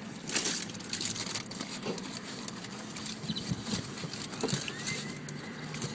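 Boxer dogs jostling and eating in a car's back seat: a quick run of clicks, smacks and knocks, with a short rising whine near the end. A faint steady hum sits underneath.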